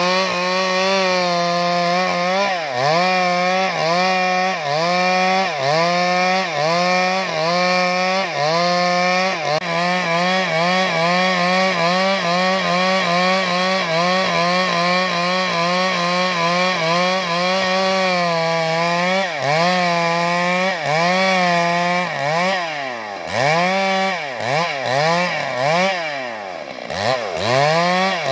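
Stihl 382 two-stroke chainsaw running at high revs while rip-cutting a log lengthwise, the chain throwing sawdust. The engine pitch keeps dipping and recovering as the chain bites under load, with several deeper drops and climbs in revs near the end.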